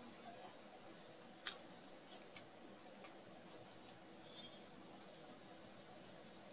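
Near silence: faint steady hiss with a few soft computer mouse clicks, the clearest about one and a half seconds in and another about a second later.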